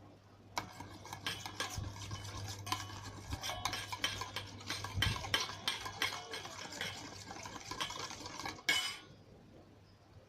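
A utensil stirring a slime mixture of hand lotion, dish soap and salt in a container, with quick repeated clicks and scrapes against the sides. The stirring stops near the end.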